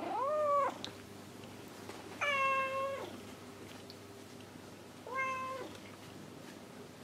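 Domestic cat meowing three times: a short meow that rises and falls at the start, a longer, level meow about two seconds in, and a short one about five seconds in.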